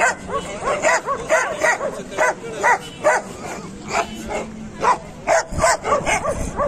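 Dogs yapping in a continuous run of short, high barks, about two or three a second.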